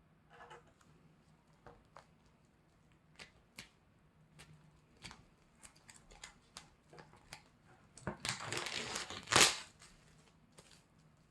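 Handling of a packaged CD album: scattered light taps and clicks, then about eight seconds in its plastic wrapping is torn and crinkled for a second or so, ending in one sharp rip.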